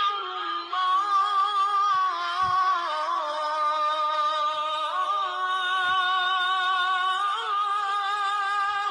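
A single voice chanting Islamic devotional phrases, drawing each syllable out into a long, wavering melodic line with hardly a break.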